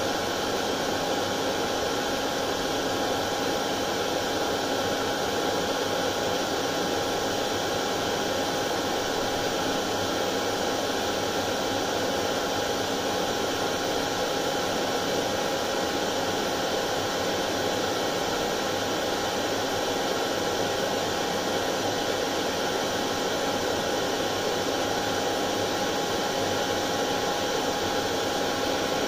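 Hair dryer running continuously at a steady pitch: an even blowing rush with a constant hum, played as white noise for settling colicky babies.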